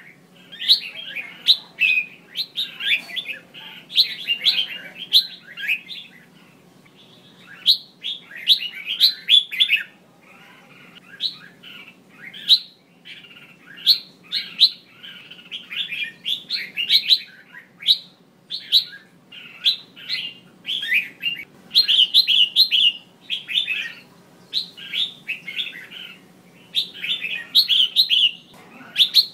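Female red-whiskered bulbul calling in rapid clusters of short, bright chirps and chattering phrases, with a couple of brief lulls. These are the female calls that bird keepers play to excite male bulbuls into singing.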